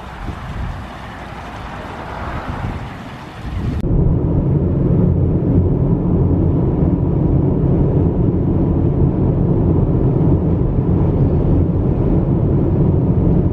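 A small outdoor fountain running, with a steady hiss of water. A sudden cut about four seconds in brings the louder, steady rumble of a car's road and engine noise at highway speed, heard from inside the cabin.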